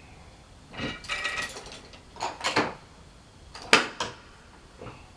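Ratchet clicks and metal clanks from a Frick sawmill's carriage mechanism as the log is adjusted upward, in about four separate bursts with pauses between; the saw is not running.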